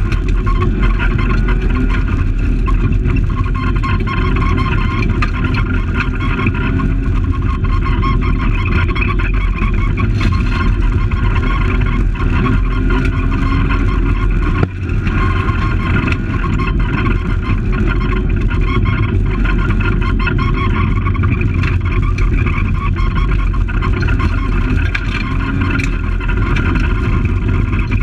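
Fiat Palio rally car's engine running hard under load, heard from inside the cabin while driving on a gravel stage, with steady road and gravel noise. There is a brief drop in the sound about halfway through.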